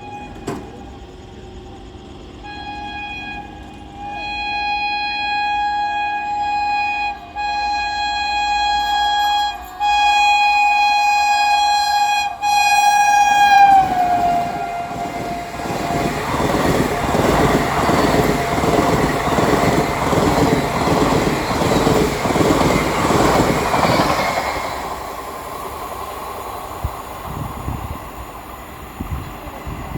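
WAP-4 electric locomotive's horn sounding almost continuously, with a few brief breaks, as the train approaches at about 110 km/h. The pitch drops as the locomotive passes about fourteen seconds in. The superfast train's coaches then rush past with a rapid, rhythmic wheel clatter that fades near the end.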